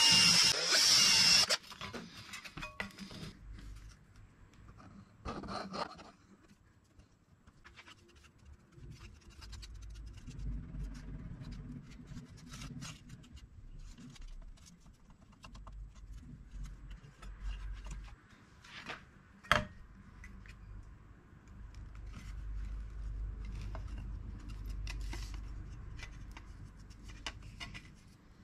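A power drill runs briefly and stops. Then come quiet rubbing, scraping and scattered clicks of wood pieces and tools being handled, with one sharp knock about twenty seconds in.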